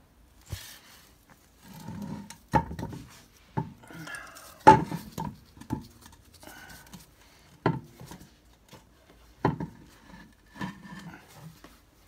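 A series of sharp metal clunks and knocks, the loudest about five seconds in, as a Citroen C1 gearbox is lifted and worked back onto the engine against the new clutch. Low grunts of effort come between the knocks.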